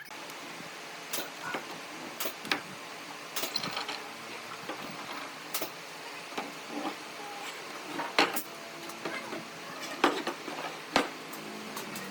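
Hand work with tools and wooden parts: irregular light knocks and clicks over a steady hiss, the loudest about eight seconds in and again near the end.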